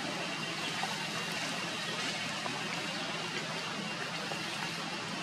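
Steady outdoor background noise: an even hiss with a faint, steady high tone running through it and a few soft ticks.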